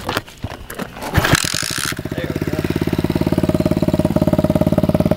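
Dirt bike engine with a homemade exhaust tip being started: a few knocks and clicks, then it catches about a second in with a short burst and settles into a steady idle with fast, even exhaust pulses.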